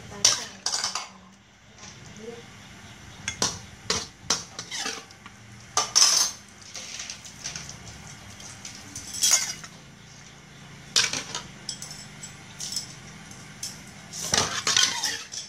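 Metal spatula scraping and knocking against a steel wok as stir-fried greens and meat are scooped out into a bowl: irregular scrapes and clanks, the loudest about six seconds in and again near the end.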